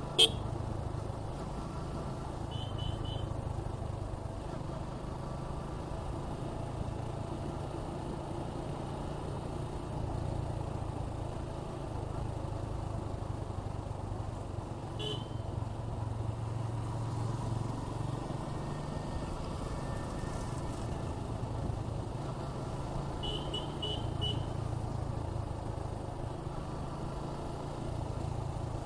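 Suzuki Gixxer 155's single-cylinder engine running steadily while the motorcycle cruises at an easy pace, with road and wind noise. Short bursts of quick high-pitched beeps come about 3 seconds in and again about 23 seconds in.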